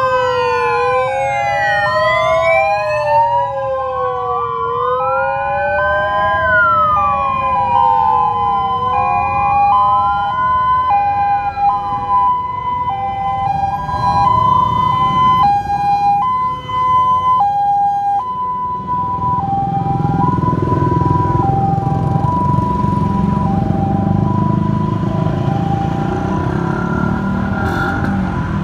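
Sirens of a police-escorted motorcade with an ambulance passing: at first several wailing sirens sweep up and down over one another, then a two-tone siren alternates between two pitches. Vehicle engines and tyres grow louder in the second half as the column rolls by.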